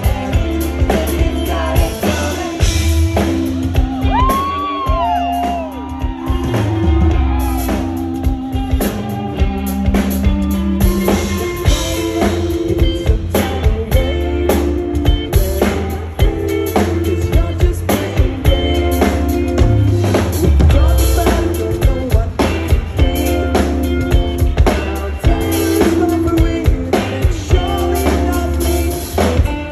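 Live indie-rock band playing: electric guitars, electric bass and a drum kit keeping a steady beat, with a sung lead vocal.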